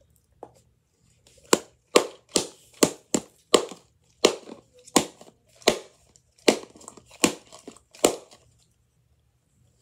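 About a dozen sharp plastic cracks, spaced irregularly about half a second apart, as a hard clear plastic toy ball is forced in an attempt to open it; they stop near the end.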